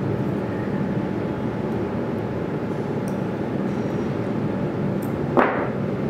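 Steady low room hum, with one sharp knock about five and a half seconds in.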